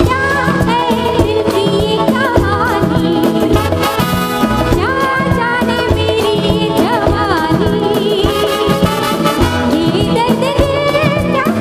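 Live band playing a Bollywood song, with a woman singing lead into a microphone over keyboards and percussion keeping a steady beat.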